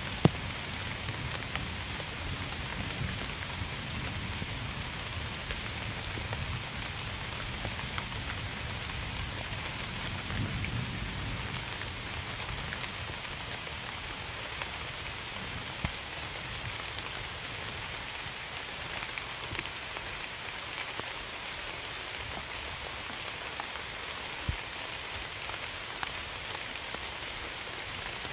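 Steady rain falling on a surface, a continuous hiss with scattered individual drops ticking sharply. A soft low rumble sits under it for roughly the first twelve seconds, then fades.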